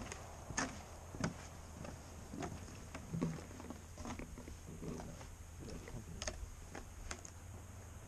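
Footsteps on the wooden planks of a footbridge: a string of uneven knocks, roughly one or two a second.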